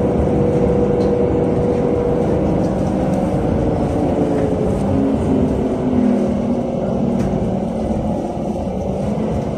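NefAZ 5299 city bus with a Weichai WP7NG260E51 compressed-natural-gas engine, heard from inside the cabin while driving: a steady engine hum over low road rumble, its pitch shifting as the engine speed changes.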